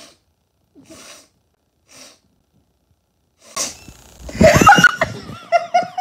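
Three short, sharp intakes of breath about a second apart, then a sudden sneeze-like burst and loud, breathless, wheezing laughter that turns into high, wavering squeaks near the end.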